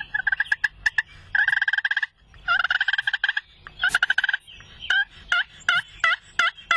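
Turkey calling: several rapid rattling bursts like gobbles, then a steady run of separate yelping notes, about three a second.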